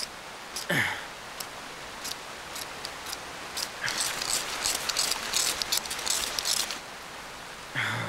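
A ferrocerium rod struck hard and fast with a striker: a dense run of rasping scrapes lasting about three seconds, starting about four seconds in, after a few single clicks. It is a failed attempt to light rain-soaked grass tinder, and the sparks keep going out. Steady rain hiss runs underneath.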